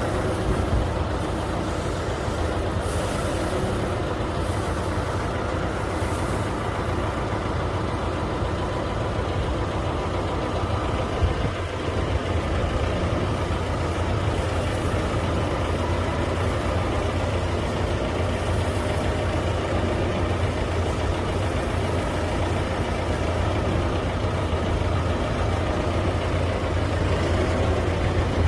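A vehicle engine running steadily with a low hum.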